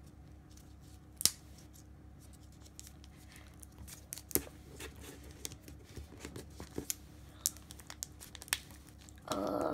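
Small hands handling a plastic Kinder Joy egg and its red toy capsule, prying the plastic: scattered light clicks and taps. A short louder rustle comes near the end.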